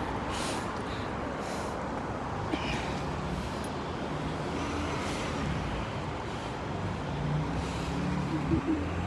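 Street traffic: steady noise of passing motor vehicles, with a heavy vehicle's engine hum coming in about halfway through and growing louder near the end.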